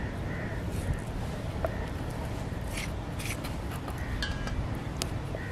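Knife scoring raw chicken drumsticks along the bone on a wooden board: soft scraping and a few faint clicks, over a steady low background rumble.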